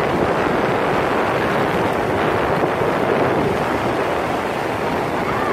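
Ocean surf breaking and washing up the sand in a steady rush, with wind buffeting the phone's microphone.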